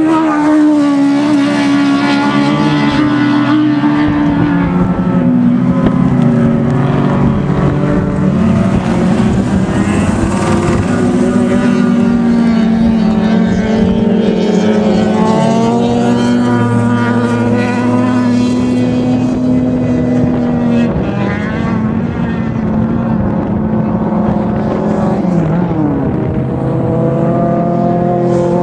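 Several racing car engines running hard together at high revs, their pitch holding for long stretches and then shifting as the cars accelerate and lift off, with one gliding down near the end.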